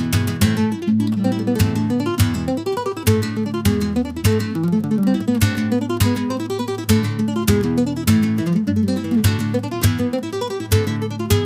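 Background music: acoustic guitar plucked and strummed in quick, dense notes, in a flamenco-like style.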